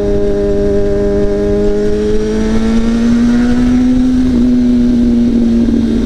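2005 Kawasaki ZX-6R's inline-four engine running through a straight pipe with no muffler while riding. It holds a steady pitch, then rises slightly a couple of seconds in and holds again.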